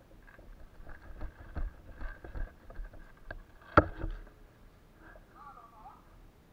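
Footsteps thudding through grass, with clothing and gear rustling and short clicks of equipment as an airsoft player moves. One loud, sharp crack comes near the middle.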